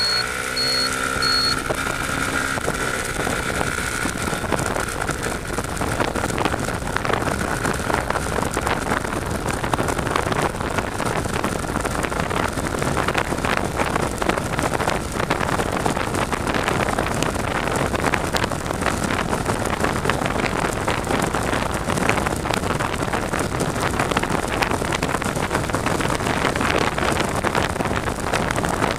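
Toros GP 500 under way on a road: its motor and road noise run together with a steady rush of wind on the handlebar-mounted camera. A high whine fades out over the first several seconds.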